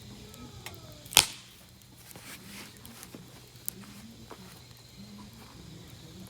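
Wood fire crackling with scattered small pops, and one loud sharp pop about a second in.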